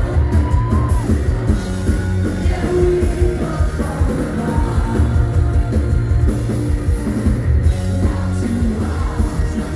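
Punk rock band playing live and loud: electric guitar, bass and drums, with the singer's vocals over them.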